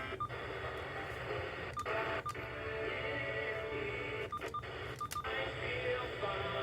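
Audio from a radio receiver, thin, with nothing above the midrange, cutting out briefly several times.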